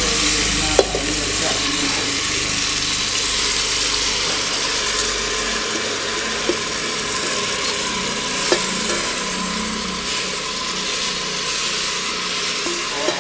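Washed rice and moong dal sizzling as they are tipped into hot ghee in a pressure cooker: a steady hiss that eases slowly, with a few sharp clinks of the steel bowl against the cooker.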